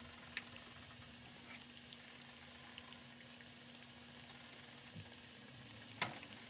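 A batter-coated appalam (papad) deep-frying in hot oil: a faint, steady sizzle with a few small crackles and one sharper tick near the end.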